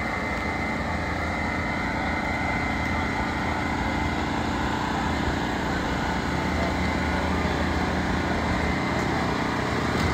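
Sports car engines idling steadily, an even low drone with no revving.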